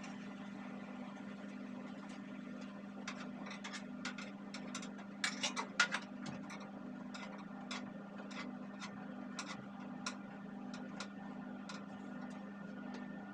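Light clicks and clacks of hard parts being handled during ventilation fan cleaning, scattered and loudest in a quick cluster about five to six seconds in, over a steady low hum.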